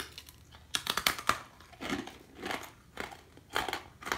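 Someone biting and chewing hardtack, a very hard, dry flour-and-water cracker, with crunches about twice a second starting about a second in.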